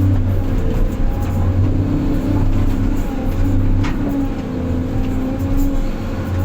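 Heavy diesel engine running steadily, its pitch shifting up and down a little as the load changes. There is a single sharp click about four seconds in.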